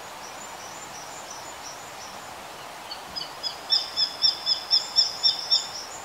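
Japanese sparrowhawk calling: a rapid run of about ten sharp, high notes, about four a second, starting about three seconds in, growing louder and then fading. Fainter high chirps come earlier, over steady outdoor background noise.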